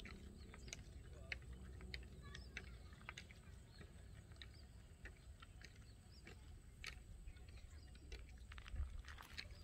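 Near silence: faint outdoor ambience, a low rumble with scattered short high ticks.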